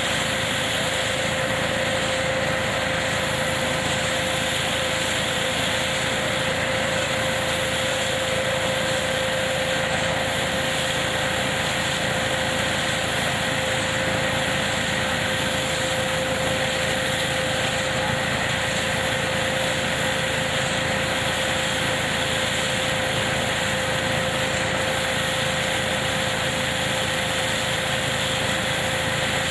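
Tractor-driven hazelnut harvesting machine running steadily, a constant machine noise with a steady tone held throughout.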